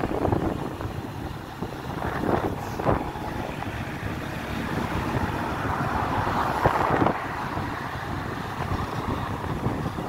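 Wind rushing over the microphone of a phone on a moving motorcycle, with stronger gusts about two to three seconds in and again around six to seven seconds in.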